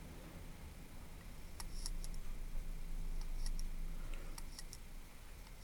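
Several light, sharp clicks and ticks of small metal hand tools being handled, over a low steady hum.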